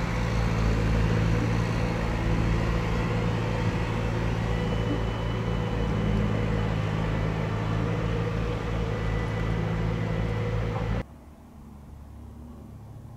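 Heavy diesel engine idling steadily with a low, even hum. It cuts off abruptly about eleven seconds in, leaving only a faint low hum.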